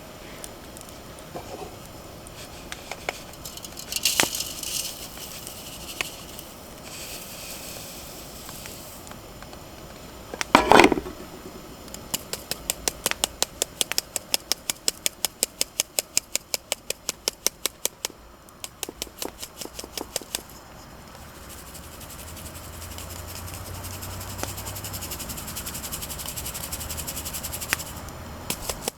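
Runs of quick, evenly spaced sharp taps, about four a second, with one louder knock a little before they begin.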